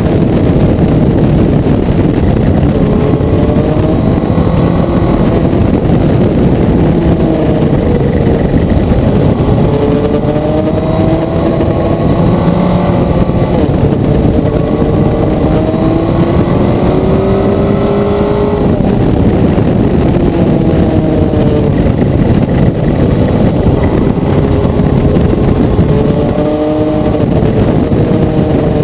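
Motorcycle engine being ridden hard, its revs climbing and dropping again and again as the rider accelerates, shifts and rolls off, over a steady rush of noise.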